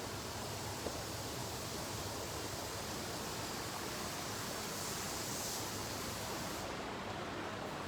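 A steady, even hiss of background noise, with one faint click about a second in.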